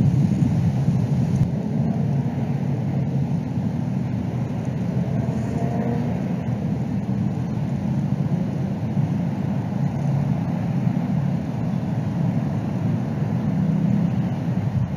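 Steady low rumbling background noise on an outdoor nest-cam microphone, with no distinct calls or knocks standing out.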